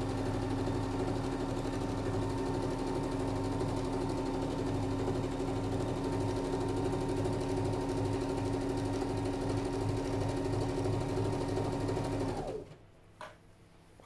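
Domestic electric sewing machine running steadily as it sews a straight-stitch seam through fabric. It stops abruptly about a second and a half before the end, followed by a faint click.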